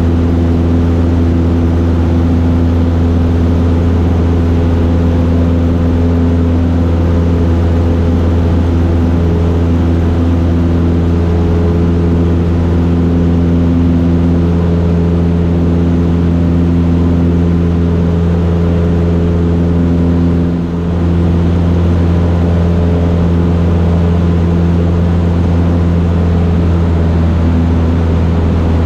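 Cessna 152's four-cylinder Lycoming engine and propeller running at a steady, loud drone in the cockpit. There is one brief dip in level about two-thirds of the way through.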